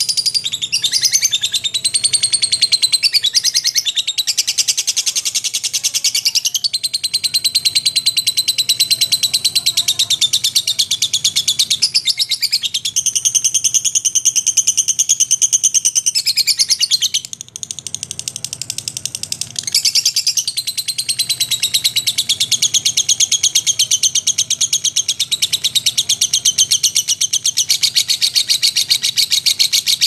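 Lovebird singing a long, rapid, high-pitched chattering trill. It drops to a softer stretch a little past halfway, then picks up again at full strength.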